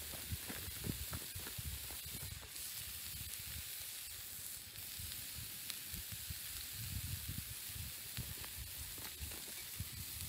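Bacon slices sizzling on a steel griddle over a wood fire: a steady frying hiss, with intermittent low rumbling underneath.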